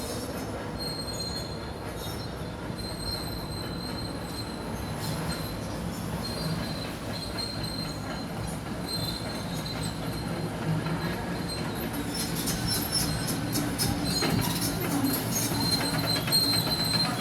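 Demolition excavator working rubble: a steady engine rumble with a high, on-and-off metallic squeal. From about twelve seconds in, rubble and steel clank and knock repeatedly, growing louder toward the end.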